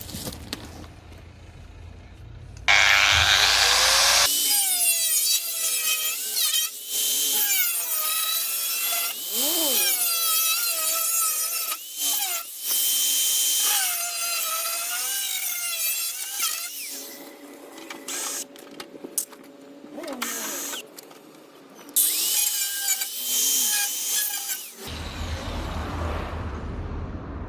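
Handheld power tool cutting through thin sheet steel of a Fiat 500 front panel. It spins up about three seconds in, then runs in long passes with a few short breaks, its pitch dipping and recovering as it is pressed into the metal, and stops near the end.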